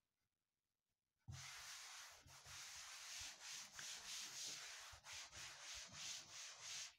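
Chalkboard being wiped with a board duster: a steady rubbing hiss that starts about a second in and stops just before the end.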